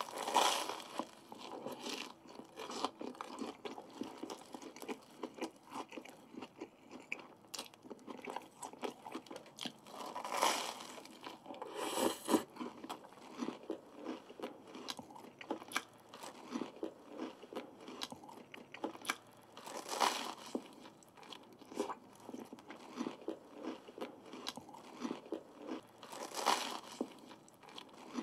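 Close-miked biting and chewing of a Korean street toast sandwich: crisp toasted bread crunching under the teeth, then steady moist chewing full of small crackles. About five louder crunches mark new bites, near the start, twice around a third of the way in, in the middle and near the end.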